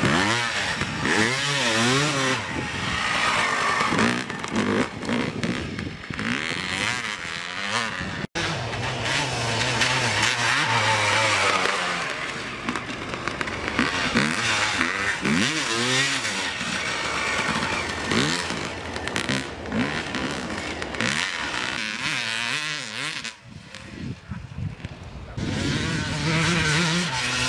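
Suzuki RM250 single-cylinder two-stroke motocross engine, fitted without its FMF exhaust, revving hard as the bike is ridden on dirt. The pitch sweeps up and down again and again with the throttle and gear changes. It cuts out briefly about eight seconds in, drops away for a few seconds near the end, then comes back loud.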